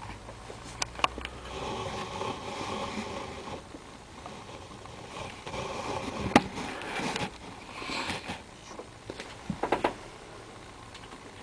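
Model freight train rolling along the track, its wagon wheels rattling and clicking over the rail joints, in two rattling spells with sharp clicks between them.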